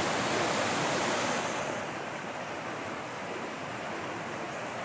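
Mountain stream rushing and splashing over rocks in a small cascade, a steady loud rush that eases slightly after about two seconds.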